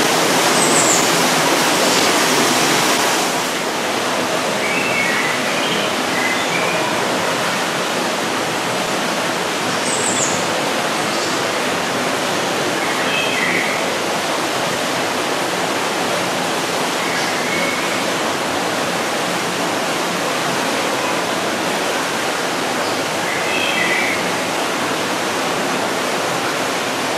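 Steady rushing of running water, like a waterfall or stream, dropping slightly in level about three seconds in. Faint short chirps come through now and then.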